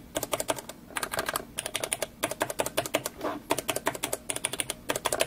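Clicky blue mechanical keyboard switches (Cherry MX Blue type) being pressed rapidly, giving runs of sharp clicks with brief pauses between them.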